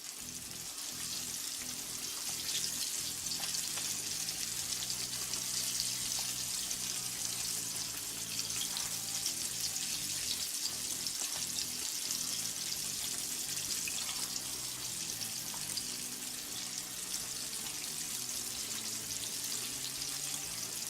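Breaded chicken breast frying in hot oil in a cast-iron skillet: a steady, dense sizzle full of fine crackles. It grows a little louder over the first couple of seconds, then holds.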